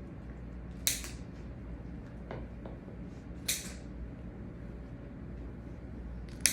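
A lighter clicked three times, a few seconds apart, each click a short sharp snap with a brief hiss.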